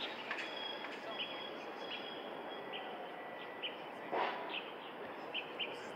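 Outdoor ambience: a steady hiss with birds chirping in short, high calls, and one brief louder noise about four seconds in.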